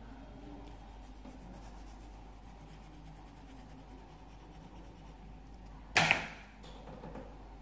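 A sudden loud knock with a short rushing tail about six seconds in, followed by a lighter click, over a steady low hum.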